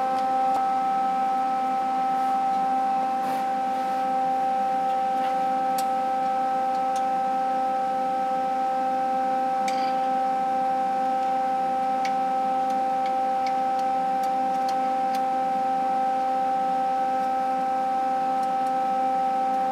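A steady whine holding several pitches at once, with a few faint metal clicks as a nut is held against a broken bolt stub with a screwdriver.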